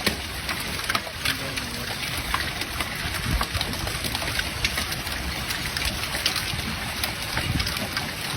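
Steady rushing noise of heavy rain, dotted with scattered sharp taps of drops striking a surface.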